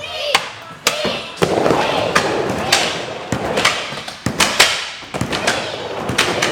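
Skateboard wheels rolling in a wooden bowl, with a string of sharp clacks from boards and trucks hitting the coping and the ramp.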